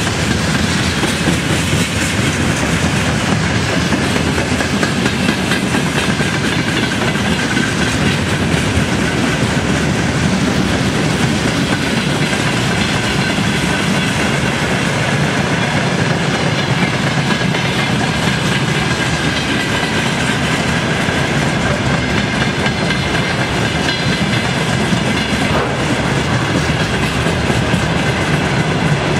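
Wagons of a long broad-gauge freight train rolling past, a steady loud rumble with the wheels clattering over the rails.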